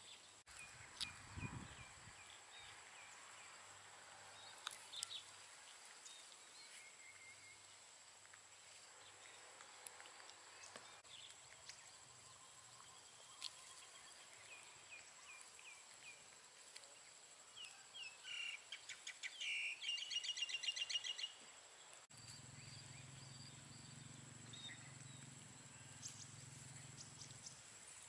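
Faint outdoor ambience: small birds give short chirps now and then, with a quick run of rapid chirps about two-thirds of the way through, over a thin steady high whine. A low hum comes in near the end.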